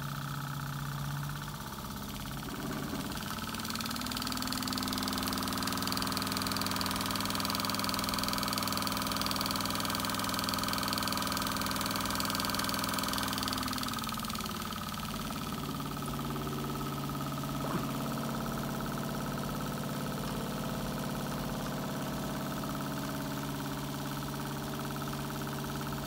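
Homemade Stirling engine running steadily, turning a small alternator that powers a small electric motor held in the hand. A steady mechanical hum with several held tones, whose pitch shifts a few seconds in and again around halfway.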